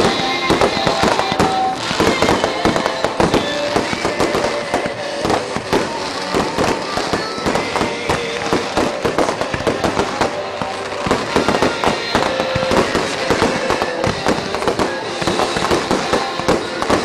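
Aerial fireworks shells bursting one after another in a dense, continuous barrage of bangs and crackles.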